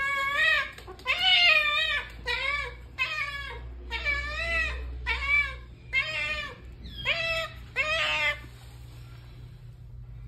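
Domestic cat meowing insistently for food, about nine loud, wavering meows a second or so apart, stopping about eight seconds in as the meat is set down.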